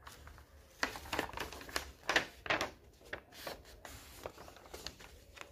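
Sheets of printer paper handled and turned over by hand: a run of irregular rustles and crinkles, loudest about two seconds in.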